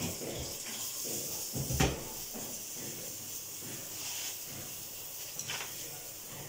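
Cashews frying in ghee in a pan with a faint steady sizzle, while a wooden spatula stirs them and knocks once against the pan a little under two seconds in.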